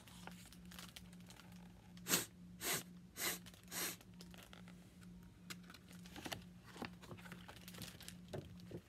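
A person sniffing four times through the nose, about half a second apart, acting out a dog sniffing. Afterwards, faint rustling and ticks of stiff book pages as a fold-out spread is opened.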